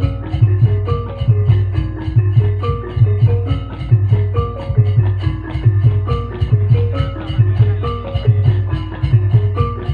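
Javanese gamelan music: struck keyed instruments play quick repeating note patterns over a steady low drum pulse, accompanying the dance.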